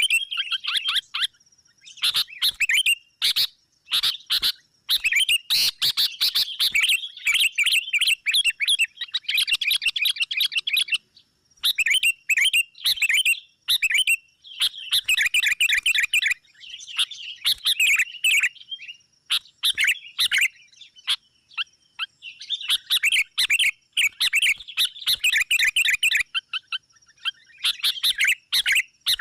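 Sooty-headed bulbuls (kutilang) chattering in excited, rapid bursts of calls a few seconds long with brief pauses between: the agitated, rival-summoning calling used as a lure to draw wild bulbuls. A faint steady high tone runs underneath.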